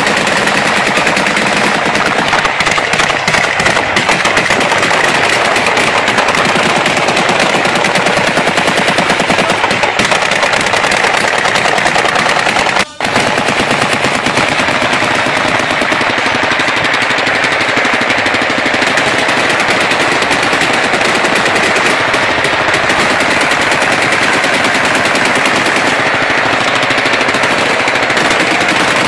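Loud, sustained automatic gunfire, the shots packed so tightly that they run together, with one brief break about thirteen seconds in.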